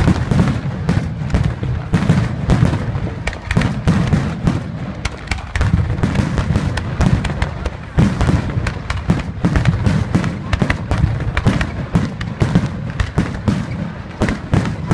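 Fireworks display: a dense, unbroken string of aerial shell bursts and crackling reports, several bangs a second, with the sharpest reports about two and about eight seconds in.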